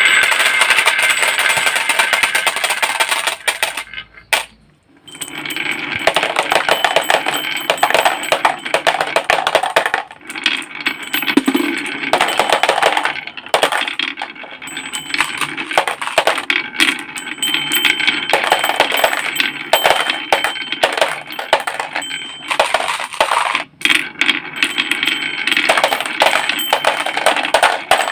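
Small toy cars clattering and rattling against each other and hard surfaces as they are handled. The clatter is dense and irregular and pauses briefly about four seconds in.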